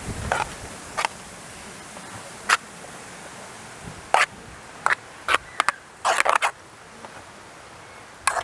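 A utensil clinking and scraping against the side of an aluminium pot as shredded chicken and creamed mushrooms are mixed: sharp, irregular clinks, with a quick cluster a little past the middle.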